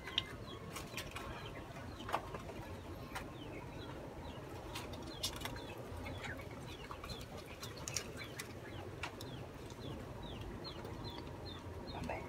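A small bird chirping over and over, short falling chirps, faint in the background. Light clicks and taps from food being handled on a metal baking tray, the sharpest just after the start and about two seconds in.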